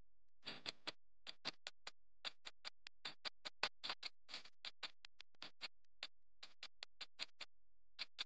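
Countdown-timer sound effect: a run of sharp, irregularly spaced ticking clicks, several a second.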